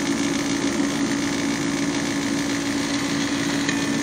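Steady buzzing hum with hiss, one pitch held throughout, playing through a TV speaker at the start of an old film-era commercial.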